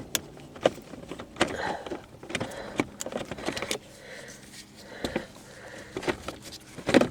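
Plastic car console trim being handled and worked loose by hand: a series of sharp clicks, knocks and small rattles.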